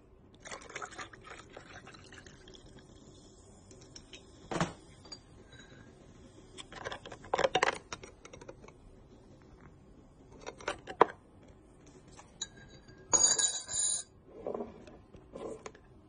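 Ice cubes and a metal bar spoon clinking against a tall glass as a drink is stirred, in scattered clinks and knocks. About thirteen seconds in comes a denser run of bright, ringing clinks.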